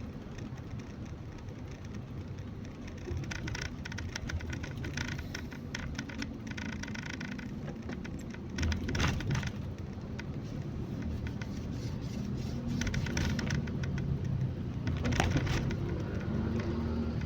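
A car being driven: a steady low engine and road rumble heard from inside the cabin, with scattered crackling noise over it.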